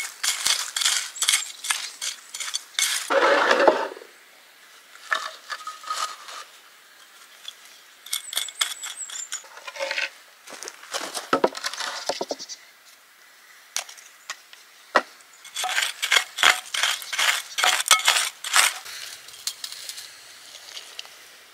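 Stony, gravelly soil being scraped and dug by hand and with a wooden board, small stones clicking and clinking against each other in quick clusters, with quieter pauses between.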